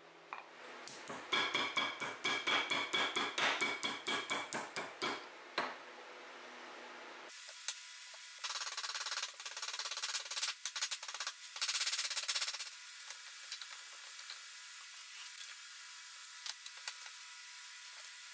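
Ball-peen hammer striking a small piece of steel over a concave wooden mold, dishing it into a sword's butt cap, about five ringing blows a second for several seconds. After a pause come lighter, quicker clusters of hammer taps on a small steel fitting held against a bench vise.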